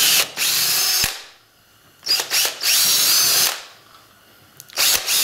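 Power drill with a 5/32-inch bit drilling screw holes through a clear polycarbonate plate. It runs in short spells of a second or so, with pauses between, and each start is a rising whine.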